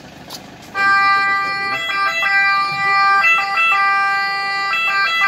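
Ambulance siren switched on about a second in, holding one steady tone with a brief jump in pitch about every second and a half.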